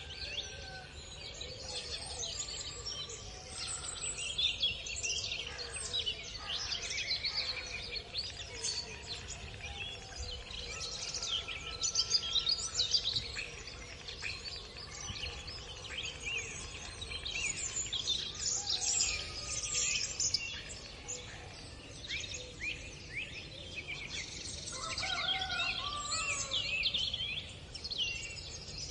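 Dawn chorus of many songbirds chirping and singing, their calls overlapping densely, with a few lower whistled notes among them, over a steady low rumble of outdoor background noise.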